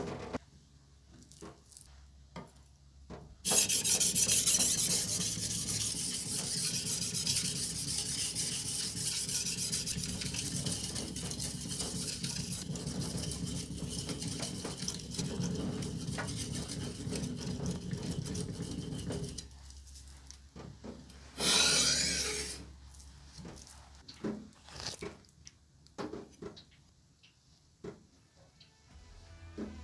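Steel blade of a Giesser boning knife ground back and forth on a wet whetstone while it is reshaped into an oroshi knife: a steady, rapid scraping that starts about three and a half seconds in and stops about sixteen seconds later. A short, loud scrape follows a couple of seconds after that, then a few faint scrapes.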